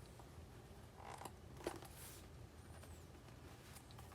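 Faint rustling and a few soft clicks of the watch's packaging being handled and opened, over a low background hum.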